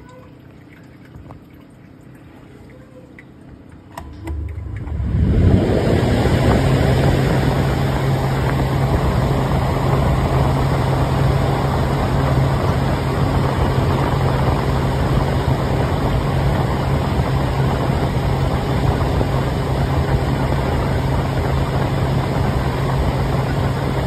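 Washing machine drum motor starting about four seconds in and spinning up within a couple of seconds to a loud, steady run: a constant low hum over a broad whirring noise.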